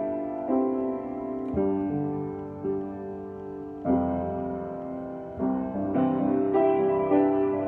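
Vose & Sons grand piano played in slow, sustained chords, a new chord struck every second or so and left to ring.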